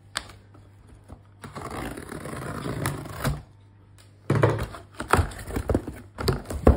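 A knife slicing through packing tape on a cardboard box, a scratchy run of about two seconds, then the box's cardboard flaps being pulled open with irregular clicks and crackles.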